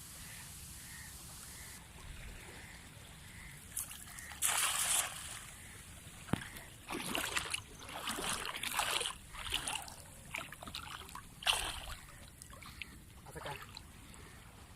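Water splashing and sloshing in a run of irregular splashes, starting about four seconds in.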